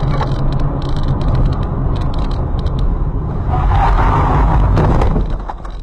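Car driving over a rough, broken road surface, heard from inside the cabin: steady low rumble of road and engine noise. It grows louder and rougher about three and a half seconds in, then drops off sharply near the end.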